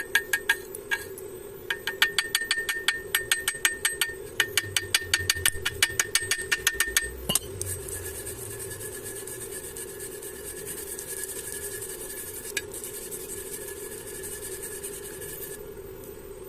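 Rapid, regular metal-on-metal tapping, about five strikes a second with a slight ring, typical of a chipping hammer knocking slag off a stick weld. It stops about seven seconds in and gives way to a steady high hiss, with a steady low hum underneath throughout.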